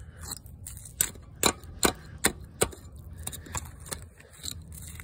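Hammer tapping at the corroded piston and rust in an open cylinder of a Wisconsin V4 air-cooled engine: a string of sharp, uneven knocks, about two to three a second, loudest around the middle.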